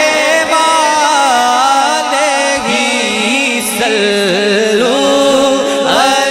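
A man singing a naat into a microphone, amplified, drawing out long wavering, melismatic notes with no clear words.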